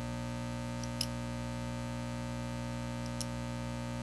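Steady electrical mains hum, with two faint sharp clicks, one about a second in and another about three seconds in.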